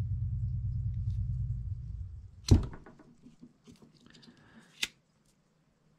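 Disposable lighter's flame burning with a steady low flutter while it melts the cut end of paracord, stopping with a sharp click about two and a half seconds in as the lighter is let go. Faint handling sounds follow, then another sharp click near the end.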